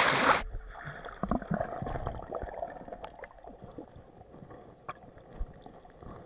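Splashing of someone wading in a stream, cut off sharply about half a second in as the microphone goes underwater. Then muffled underwater gurgling with scattered soft knocks and clicks.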